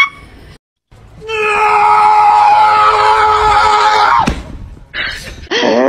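A long, loud scream-like cry held on one steady note for about three seconds, ending in a sharp downward slide. Near the end a dog's howl begins, rising in pitch.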